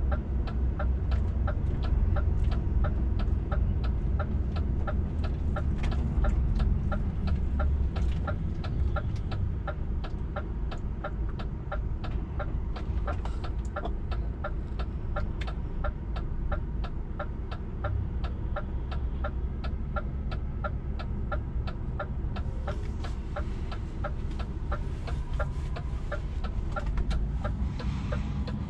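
Turn-signal indicator ticking in a steady, even rhythm inside a DAF XF truck cab, over the low, steady running of the truck's engine.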